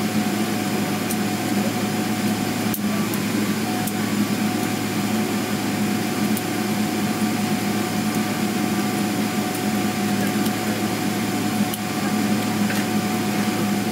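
Steady cabin hum of a Boeing 777-300ER taxiing, from its engines and air conditioning, with a few faint clicks.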